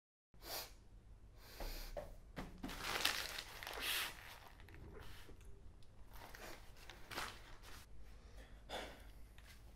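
A person sniffling and snorting into a tissue: several short, breathy bursts, loudest about three to four seconds in, followed by a few faint soft rustles.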